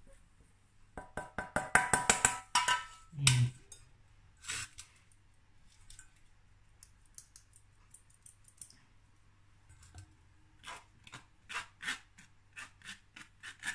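Matcha and cake-flour mix being sifted through a metal mesh sieve. About a second in there is a flurry of clicks and knocks with a brief metallic ring as the bowl and spatula hit the sieve. Near the end comes light, even tapping on the sieve at about two or three taps a second.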